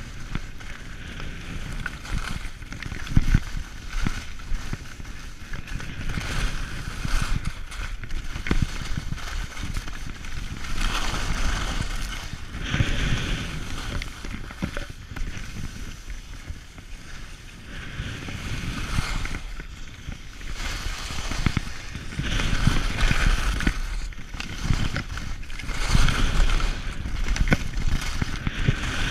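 Skis scraping and carving over packed snow through a run of turns, the hiss swelling and fading every few seconds, with wind rumbling on the camera microphone.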